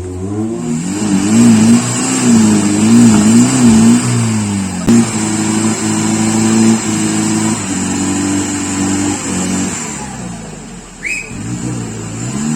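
Off-road 4x4 jeep engine revving hard. Its pitch swings up and down for the first few seconds, then holds high in a few steady steps, drops off about ten seconds in, and revs again near the end.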